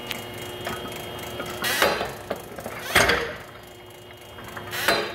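Spring-loaded steel arm on a machine's drive end worked by hand, giving three metallic knocks with a short ring and a few lighter clicks, over a faint steady hum.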